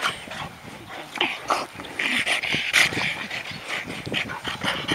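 Dogs vocalising during rough play on grass: a string of short, noisy sounds, busiest about halfway through.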